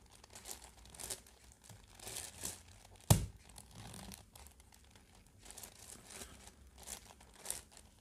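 Plastic layers of a 10x10x10 Rubik's cube clicking and rattling as they are turned by hand in quick, irregular moves, with one loud sharp knock about three seconds in.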